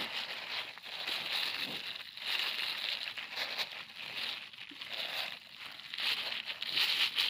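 Thin plastic bag crinkling and rustling as flour is shaken out of it into a plastic plate, in an uneven, continuous rustle with small crackles.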